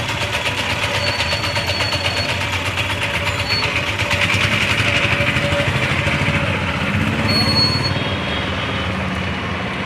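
Street traffic with a motor vehicle engine running steadily close by, its fast even pulsing fading after about seven seconds. Brief high tones sound about a second in and again around seven and a half seconds.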